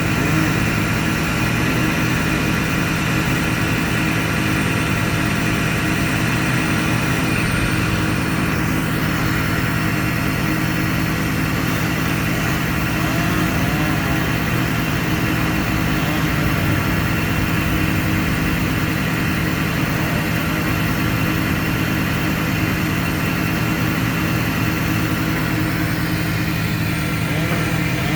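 An engine running steadily at one speed, without revving.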